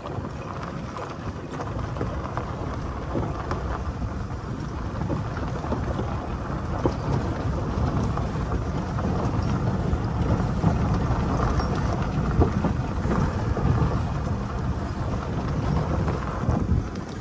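Wind buffeting the microphone: a steady, low rumbling noise without any clear tone.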